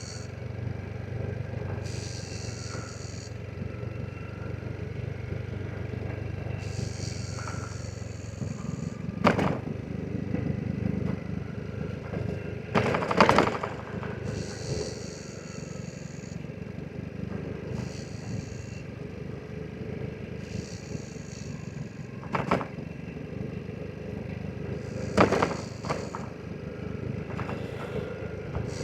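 Vespa GTS 300 scooter's single-cylinder engine running steadily at low speed, its drone dropping away about eight seconds in. Several sharp knocks and clattering follow, the loudest a little past the middle.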